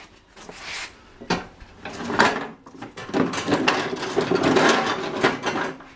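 Metal clattering and scraping as a lawn tractor's steel cutting deck is shifted and worked into place underneath the tractor. A few separate knocks come first, then denser rattling and scraping from about two seconds in until just before the end.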